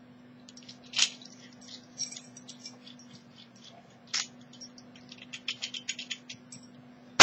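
Small metal lock-picking tools (tension wrench and pick) being handled at a uPVC door's cylinder lock, making scattered small clicks and light rattles. There are sharper single clicks about a second in and about four seconds in, a quick run of faint ticks near the end, and a loud click at the very end.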